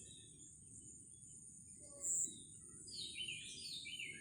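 Small birds chirping in the background, in short repeated calls that grow busier in the second half, over a steady faint high-pitched hiss. There is one brief louder sound about two seconds in.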